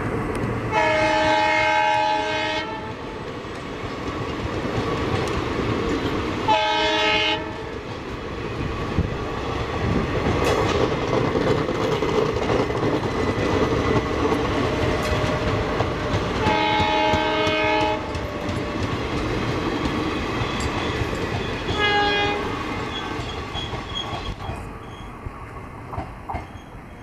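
Multi-tone air horn of WDG4 (EMD GT46MAC) diesel locomotive 12001 sounding four times as it hauls its passenger train away: a long blast near the start, a shorter one, another long one and a brief faint one. Under the horn, the wheels of the passenger coaches rumble and clack over the rails, fading away near the end.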